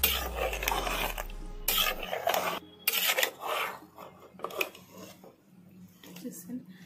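Flat steel spatula scraping and stirring thick chicken curry in an aluminium pressure cooker: a series of rasping strokes against the pot, strong for about three seconds, then weaker and sparser.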